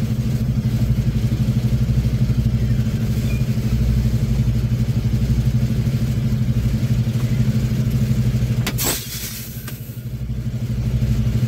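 Semi truck's diesel engine running steadily, then a short sharp hiss of air about nine seconds in, typical of the air brakes being set as the truck stops. After it the engine sound dips briefly before settling back.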